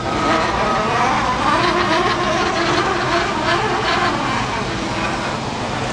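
Forklift's Volkswagen engine running, its pitch rising and falling as the revs change.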